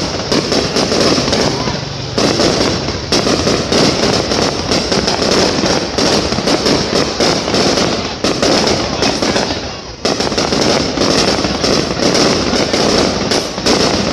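Aerial fireworks shells bursting overhead in a dense, continuous barrage of bangs and crackling, easing briefly about ten seconds in before picking up again.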